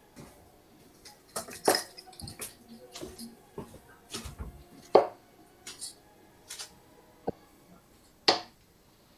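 A run of irregular sharp clicks and knocks, the loudest about five seconds in and another about eight seconds in.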